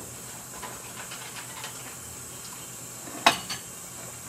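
Soft steady hiss of a simmering pot, broken about three seconds in by a sharp metallic clink as the stainless steel pot lid is picked up.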